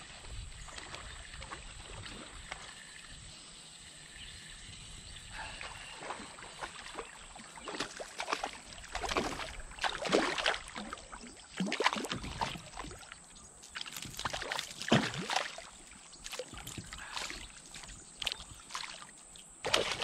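Hooked chain pickerel thrashing at the surface beside a kayak, throwing up a run of irregular splashes. The splashing starts about five seconds in and is heaviest midway through.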